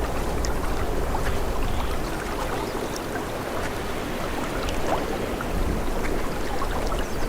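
Rushing mountain river water, a steady dense rush with small splashes through it.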